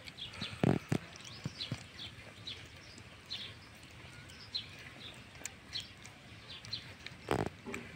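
A puppy eating rice off a plate: small chewing and lapping clicks, with two louder short noises about a second in and near the end. Small birds chirp in the background.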